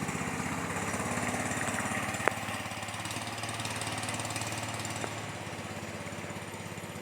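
A small engine running steadily with a fast, even pulse, and a sharp click a little over two seconds in.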